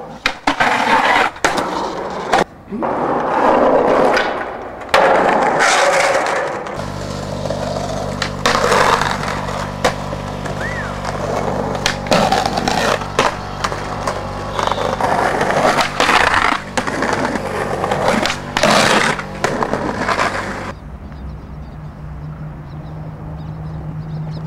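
Skateboards rolling on pavement with repeated sharp pops and clacks of the boards being kicked and landed. From about seven seconds in, a steady low hum runs underneath.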